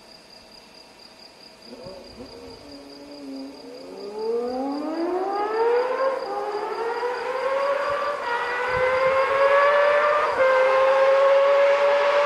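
Honda CBX 1050's 1047cc inline-six engine accelerating hard as the bike approaches from a distance. Its pitch climbs steeply and drops back at each upshift, about six, eight and ten seconds in, growing steadily louder as it nears.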